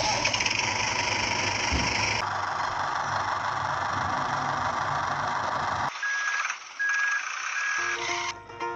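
Steady engine-like running noise with a low hum, like a tractor idling, which cuts off suddenly about six seconds in. Three short high beeps follow, and music starts near the end.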